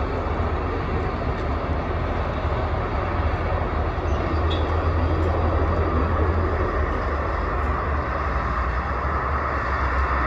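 Steady low engine rumble from the airport apron: a Boeing 737 airliner taxiing on its jet engines and an aircraft towing tractor driving past, blended together.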